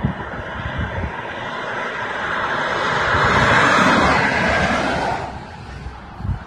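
Two cars on a motorway passing by below, their tyre and engine noise swelling to a peak about three and a half seconds in, then fading away quickly. Gusty wind buffets the microphone.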